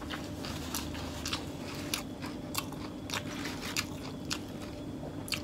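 Close-miked chewing of a mouthful of beef rolled in wild betel leaves (lá lốt) with crushed peanuts: wet chewing with sharp, irregular crunches about twice a second, over a steady low hum.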